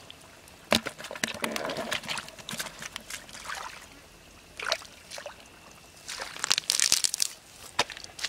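Bare feet and hands splashing in a shallow muddy puddle and crackling through dry grass, in scattered irregular bursts. The busiest stretch comes about six to seven and a half seconds in.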